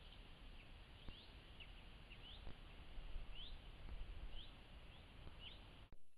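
A bird chirping repeatedly, short rising chirps about once a second, over the steady hiss of a trail camera's built-in microphone. The recording cuts off near the end.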